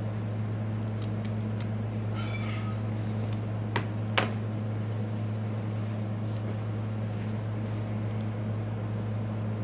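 A steady low hum, with two sharp clicks close together about four seconds in, from small parts being handled during phone repair work.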